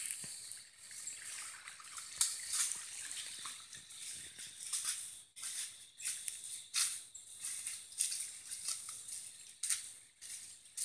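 Footsteps crunching and rustling on dry leaves and sand, irregular, about one or two a second, over a faint steady insect drone.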